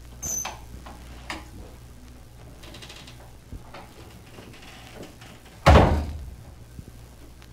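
Playback of a 45 rpm record of an arm-wrestling match: a steady low hum and faint room noise with a few small clicks and knocks, then one loud thump about two thirds of the way through that dies away in about half a second.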